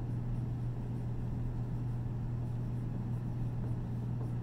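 Dry-erase marker writing on a whiteboard, heard only as faint short scratches over a steady low hum.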